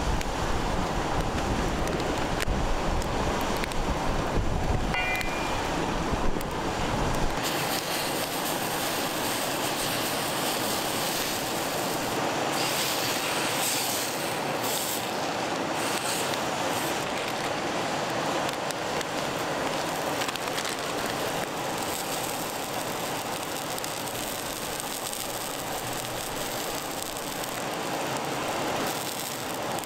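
Steady rushing of river water. A low rumble of wind on the microphone sits under it for the first seven seconds or so and stops abruptly.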